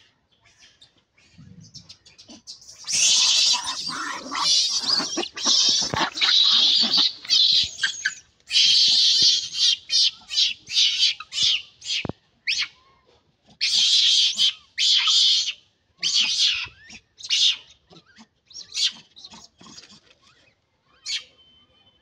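Rhesus macaques giving repeated high-pitched screeching calls, near-continuous from about three seconds in and then in shorter separate bursts.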